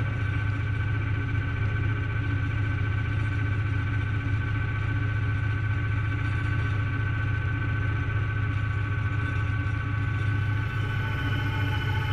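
Fiat 540 Special tractor's diesel engine running steadily under load while driving a Ferri flail mower mulching grass, a constant low drone with a steady higher whine from the spinning mower.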